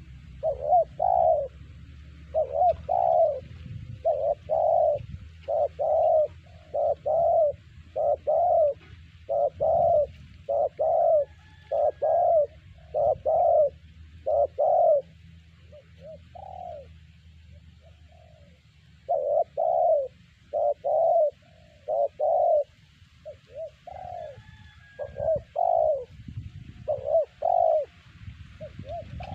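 Spotted dove (terkukur) cooing: loud, repeated coo notes in quick series, about two a second, with a short lull of softer notes a little past the middle before the cooing picks up again.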